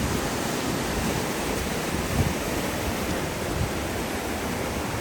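Steady rushing of the Rio Negro river's water, with uneven low rumbling from wind on the microphone.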